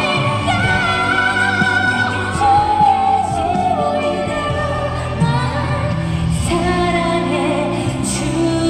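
Live pop ballad: a woman singing long held notes over a band accompaniment, in a large arena.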